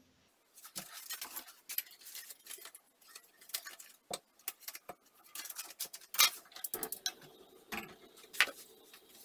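Clinks, taps and knocks of kitchenware being handled: a spoon against a bowl, and pots and a small saucepan set down on a gas stove's grate. The knocks come at uneven intervals, with a quick cluster of them a little past the middle.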